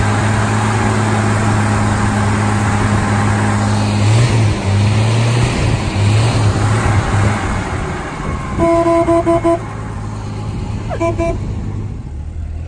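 Engine of a 1970s Ford F-series pickup running just after being started, steady at first, then uneven for a few seconds. About a second-long horn honk comes past the middle, then a short second honk near the end.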